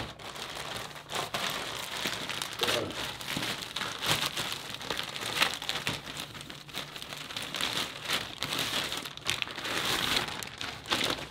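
Plastic courier mailer bag crinkling and rustling as hands handle it, open it and pull out a plastic-wrapped bag.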